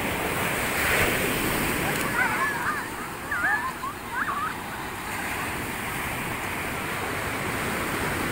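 Surf washing up the beach in a steady rush, with a louder surge about a second in. Between about two and five seconds in come several short, high, wavering shouts from children playing in the waves.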